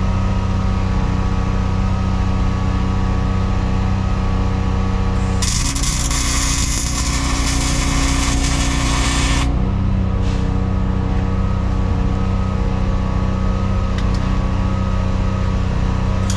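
Wire-feed welder arc crackling and hissing for about four seconds, starting about five seconds in, while tacking a brake spider onto a semi-trailer axle; the arc strikes again right at the end. A steady machine drone runs underneath throughout.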